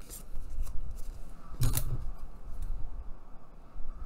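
A pair of scissors and a small piece of cardboard being handled on a cutting mat, with one sharp clack a little before the middle, then the scissor blades starting to cut into the cardboard near the end.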